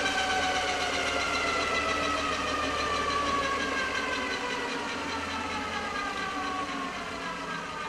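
Large DC motor, rated for 220 volts DC but fed from a 24-volt battery, running unloaded with a whine that falls slowly and steadily in pitch and fades as the motor slows down.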